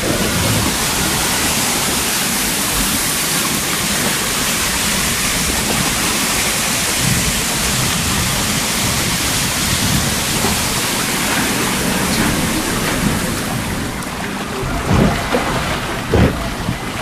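Loud, steady rush of white water churning through a flume-ride channel. Near the end it eases a little and a few low knocks come in.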